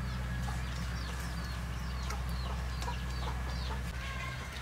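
Chickens calling: a run of short, high, falling chirps, repeated quickly, over a steady low hum.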